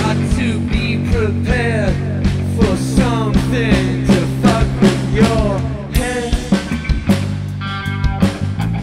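Live rock band playing: drums keeping a steady beat under sustained bass notes, with a lead line of swooping, sliding notes over the top that gives way to a short break about six seconds in before the band comes back in.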